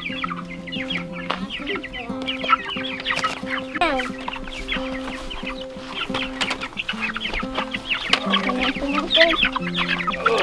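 A crate of young Cornish cross broiler chicks peeping and chirping continuously, over background music of slow held notes.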